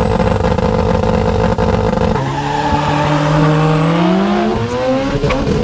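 Drag cars at the start line, engines held at high revs, then launching about two seconds in and accelerating hard down the strip, the revs climbing steadily.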